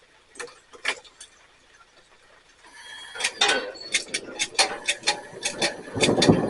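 A propane camp stove being lit. A few sharp clicks, then gas hissing with a fast run of repeated clicks, about three a second. A louder rush comes in near the end.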